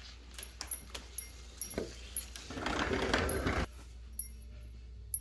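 Handling noise as a cardboard box is opened: scattered light clicks and taps, with a rustle of cardboard lasting about a second near the middle that cuts off abruptly.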